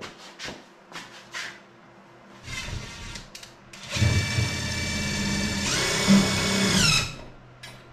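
A few clicks, then a small electric motor like a drill's. It runs briefly and quietly, starts up steadily about four seconds in, holds for about three seconds, and winds down near the end.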